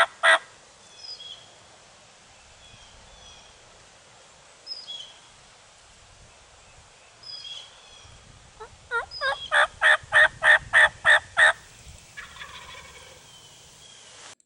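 Wild turkey calling: a series of about a dozen loud, evenly spaced notes, about four a second, about two-thirds of the way through, with the tail of a similar series just at the start. Faint higher bird chirps come in between, over a low wind rumble.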